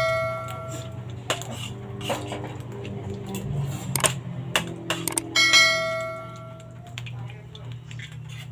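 A metal object rings like a bell: one ring fades out at the start, and a second strike about five seconds in rings on for about a second. Light clinks and a low steady hum lie underneath.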